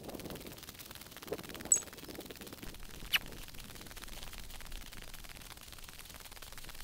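Quiet outdoor ambience of slow movement over snow, with a faint crunch about a second in and two brief high-pitched chirps, one just under two seconds in and one about three seconds in.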